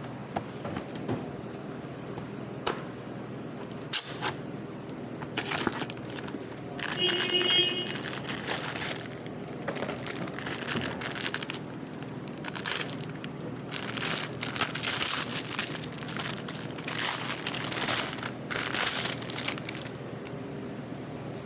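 Plastic packaging crinkling and crackling in irregular rustles as a new cabin air filter is unwrapped and handled, with a brief squeak about seven seconds in.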